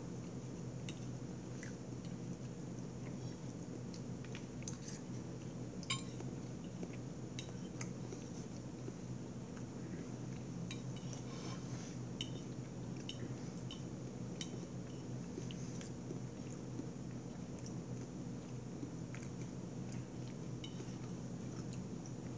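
A metal fork clicking and scraping on a plate while picking up broccoli and cauliflower: scattered sharp clicks, the loudest about six seconds in, over a steady low hum.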